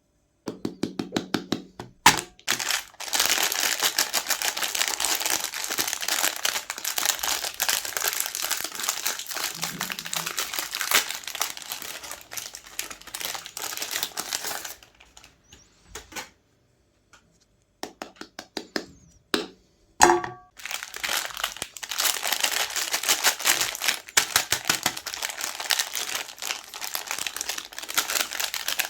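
Dense crinkling and crackling from Magnum ice cream bars and their wrappers being handled and broken. It stops for a few seconds past the middle, comes back with a few sharp cracks, then runs thickly again.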